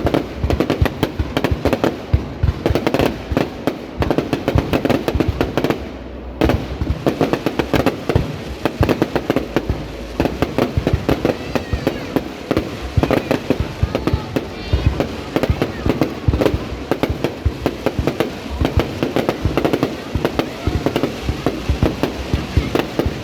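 Fireworks display: a dense, continuous run of bangs and crackles from aerial shells, with a brief lull about six seconds in.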